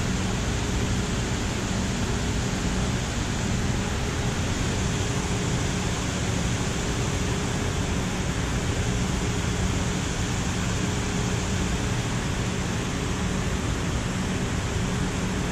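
Water pouring over a low-head dam, a steady rushing noise that does not change.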